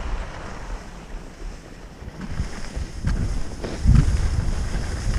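Wind buffeting the microphone, with the hiss of skis running over snow. It grows louder from about three seconds in.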